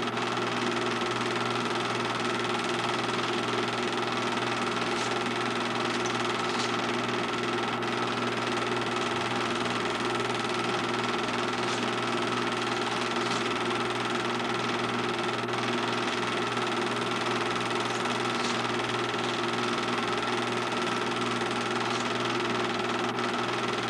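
Film projector running: a steady mechanical whirr with a constant hum.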